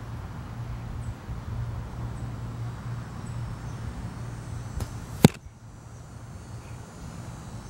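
An arrow from a compound bow striking a block target with one sharp smack, a faint click of the shot just before it.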